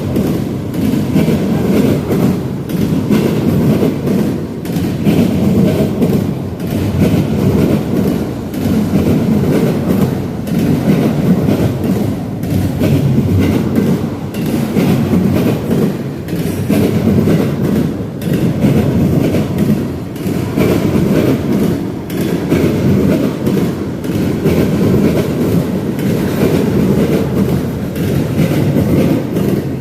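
Freight train cars rolling past, loud and steady, with a regular rise and fall as each car goes by.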